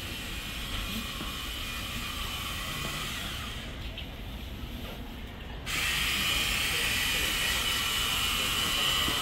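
Street ambience: a steady background wash with a high hiss. The sound shifts suddenly and grows louder about six seconds in.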